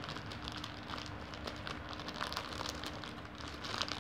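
Thin clear plastic packaging crinkling as it is handled and unwrapped, a dense, irregular run of small crackles.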